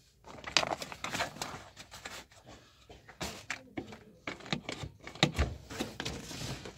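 Scattered clicks, knocks and rustling from hands handling parts and tools during the repair, with a dull thump about five seconds in.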